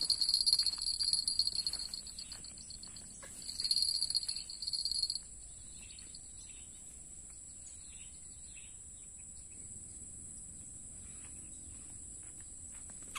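Insects chirring in a steady high-pitched trill, joined by a second pulsing trill that cuts off about five seconds in. Rustling and crunching of dry leaves underfoot in the first couple of seconds.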